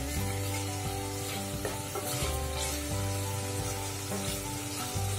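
Chopped tomatoes and green chillies frying in ghee in a stainless-steel kadhai, stirred with a wooden spatula. Background music with sustained notes and a steady bass plays underneath, changing chord about two seconds in.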